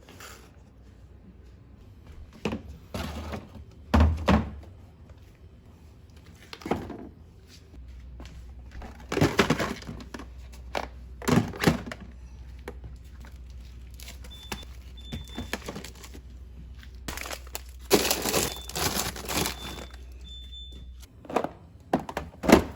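Food containers and packages being handled and set down on fridge shelves: a string of thunks, knocks and plastic crinkling, with a low steady hum through the middle and a few short high beeps.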